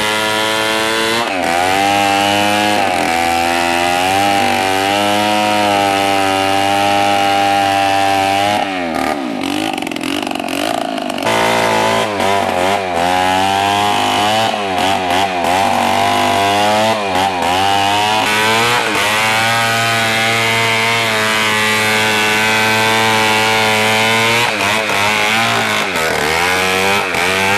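Two-stroke petrol chainsaw running and cutting into a large hardwood log, its engine pitch rising and falling over and over as the chain bites and frees. About nine seconds in the pitch drops to a lower, rougher note for a couple of seconds before climbing again.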